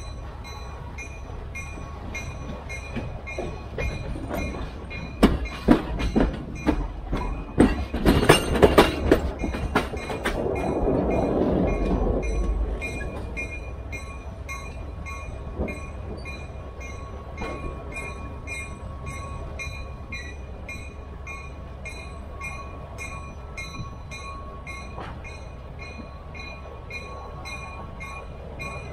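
Passenger train rolling on the rails, with a run of sharp clacks from the wheels over rail joints about five to ten seconds in, then a hiss lasting about two seconds.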